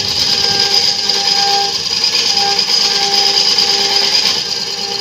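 Turning gouge cutting a large wooden disc spinning on a belt-driven lathe: a steady, loud hissing scrape of wood being shaved, with a fainter tone that comes and goes.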